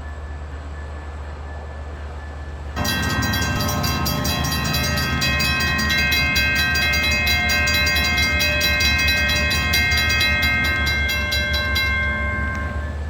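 LIRR EMD DE30AC diesel locomotive's new Nathan K5LL five-chime air horn sounding one long blast of about nine seconds as the train departs, starting abruptly about three seconds in and fading near the end, over the steady hum of the locomotive. The uploader finds the new horn's sound horrible.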